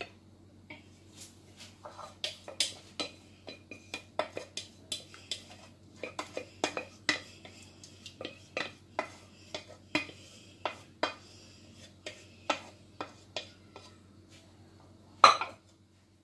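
A metal fork tapping and scraping against a glass baking dish as it presses béchamel sauce down into penne pasta. The clinks are short and irregular, several a second, with one louder knock near the end.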